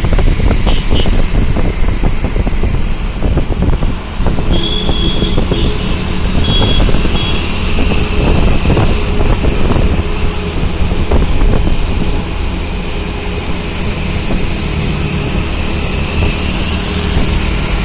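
Road traffic noise heard from a moving vehicle on a busy city road, with a heavy steady rumble and wind buffeting the microphone. Several short high beeps sound about a second in and again a few seconds later.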